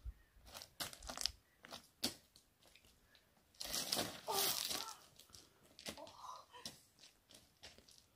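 Footsteps crunching on loose gravel and stones, in an irregular series of short crunches. From about three and a half to five seconds in, a louder rushing noise rises over the steps.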